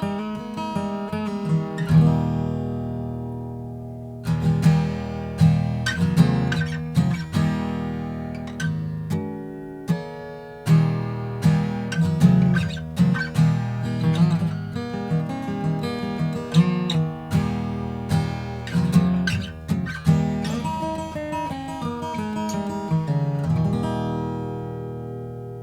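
Gibson J-45 Deluxe acoustic guitar, rosewood back and sides with a Sitka spruce top, played solo: strummed chords and picked notes, with a chord left to ring out about two seconds in and another near the end.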